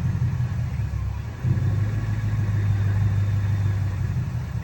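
Car engine running at low revs, its note shifting up about one and a half seconds in.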